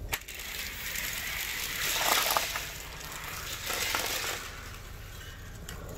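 Eight 1/64 die-cast cars released from a starting gate with a sharp click, then rolling and clattering together down a plastic MagTrack gravity-race track. The rattle swells about two seconds in and again near four seconds.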